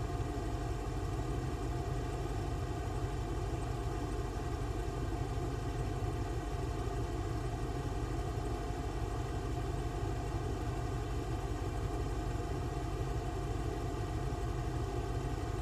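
An engine running steadily at idle, a constant hum that does not change.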